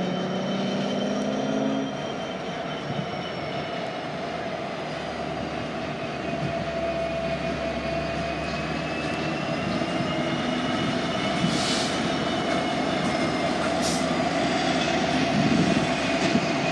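Union Pacific SD59MX diesel locomotives passing close by at speed, their engines giving a low rumble that swells as they go by, over steady rail and wheel noise with a thin, steady high whine. Two brief hisses come near the end.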